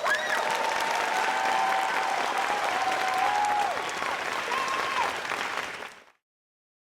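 Theater audience applauding, with a long held cheer over the clapping and a shorter one near the end; the sound cuts off abruptly about six seconds in.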